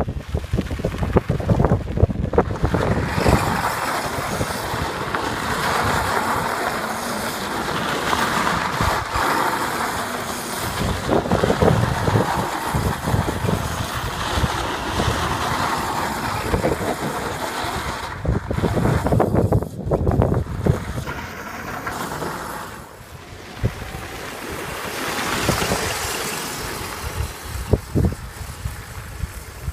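Modified Power Wheels ride-on toy car driving and skidding on loose dirt and gravel: its plastic wheels scrabble and crunch while its electric motor runs. Wind gusts buffet the microphone throughout, and the sound dips briefly about three-quarters of the way in.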